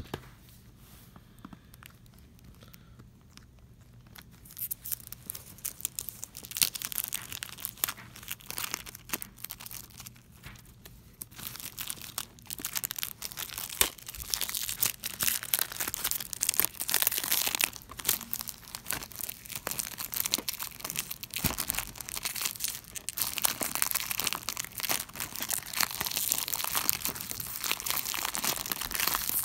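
Clear plastic shrink-wrap being torn and crinkled off a sealed VHS cassette box. After a few quiet seconds, sharp crackling starts, growing denser and nearly continuous through the second half.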